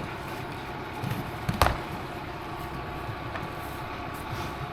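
A sharp knock about a second and a half in, with a couple of softer thuds just before it, over a steady low hum.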